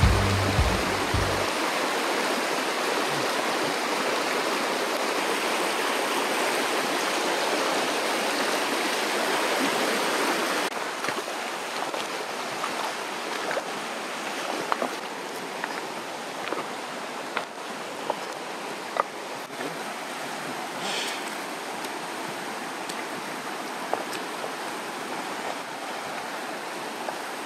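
Shallow, rocky river rapids rushing steadily. The sound drops somewhat in level about ten seconds in, and a few light clicks stand out over it later on.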